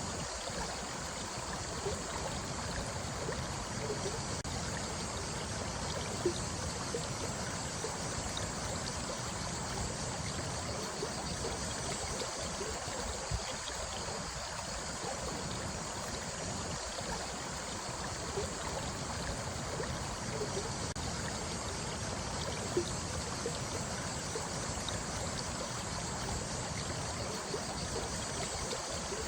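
Running water flowing steadily, with small gurgles and a few brief louder splashes.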